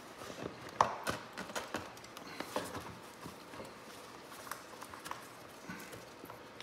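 Irregular clicks and knocks of a Honda Grom's plastic airbox and rubber intake boot being handled and worked loose by hand. The sharpest knocks come about a second in, and they thin out later on.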